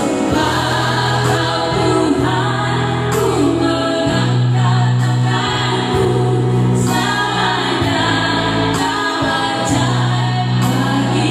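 A group of women singing a Christian worship song together into microphones, with electronic keyboard accompaniment holding long, steady low notes.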